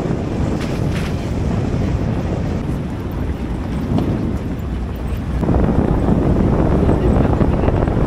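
Wind buffeting the microphone in the open back of a moving four-wheel-drive pickup, mixed with the rumble of the truck running on a rough road. It gets louder about five and a half seconds in.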